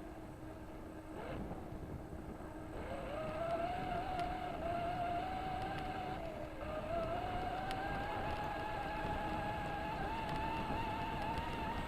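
4x4 RC car's electric motor whining as it drives. The pitch climbs as it speeds up, dips briefly around the middle, then rises slowly again.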